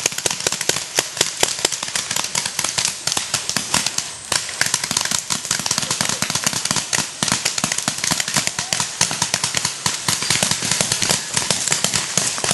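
Paintball markers firing in rapid, overlapping volleys: a dense, unbroken stream of sharp pops, many per second.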